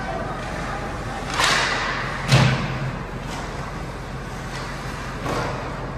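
Ice hockey play on a rink: a few scrapes and knocks, the loudest a sharp thud, as of the puck or a player hitting the boards, a little over two seconds in.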